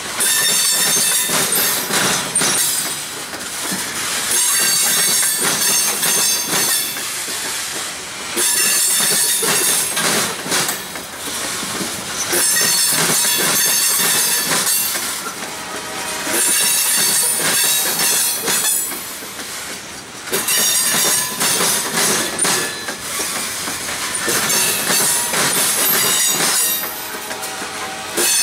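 Freight train hopper cars rolling slowly over a railroad diamond crossing: the wheels bang and clatter across the crossing in a loud burst about every four seconds, car after car, with high wheel squeal in each burst.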